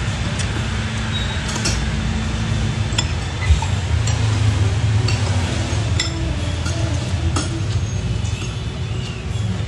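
Cutlery clinking against a bowl or plate during a meal, in light, irregular clicks over a steady low background rumble.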